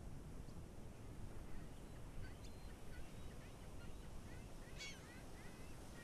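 Ocean surf washing steadily onto the shore. A few faint bird calls chirp over it from about two seconds in, the loudest just before the five-second mark.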